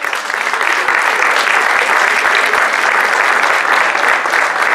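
Audience applauding: a round of hand-clapping that starts suddenly and stays steady.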